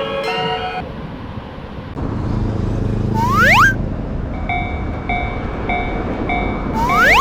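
An animated train's rumble comes in about two seconds in. Two short rising whistle-like sweeps come with it. About halfway through, a railroad crossing warning bell starts ringing in even pulses, about two a second.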